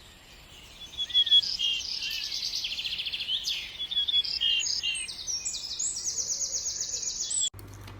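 Birds singing: several overlapping rapid, high trills and chirps that cut off abruptly about seven and a half seconds in, leaving a faint steady low hum.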